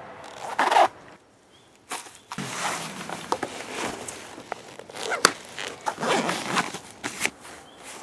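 Motocross riding gear being put on: fabric and padding rustling, with fasteners zipping and ripping in short bursts and a few sharp clicks.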